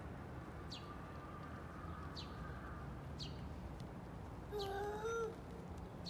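Short high chirps, each falling in pitch, come roughly once a second. About four and a half seconds in, a drawn-out meow-like cry bends up slightly and then falls away; it is the loudest sound.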